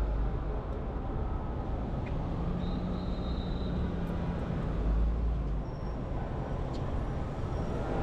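City street traffic: vehicle engines running with a steady low rumble, and a brief low drone about two seconds in.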